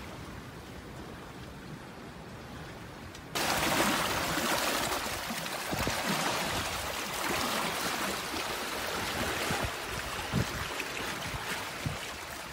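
Water rushing and splashing along a sailboat's hull under way. It is a quieter hiss at first, then grows suddenly louder a little over three seconds in and stays loud.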